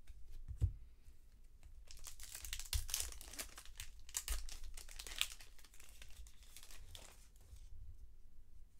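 Wrapper of a 2020 Bowman 1st Edition baseball card pack being opened and crinkled by hand, a dense run of crackling with small clicks for several seconds. It is preceded by a soft thump just under a second in.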